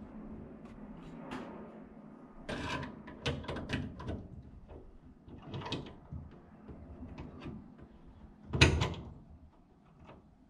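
A spanner worked on a brass pipe fitting on a steel hull: scattered metallic clicks and scrapes as the tool grips and turns, with a louder clunk about eight and a half seconds in.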